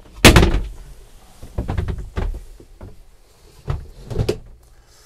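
A slatted wooden shower duckboard being set back down on a plastic shower tray: one loud knock just after the start, then a few lighter knocks and clatters as it is shifted into place.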